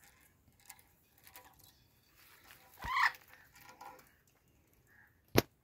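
Blue-and-gold macaw giving one short call about three seconds in, among faint small rustles. A single sharp click comes near the end.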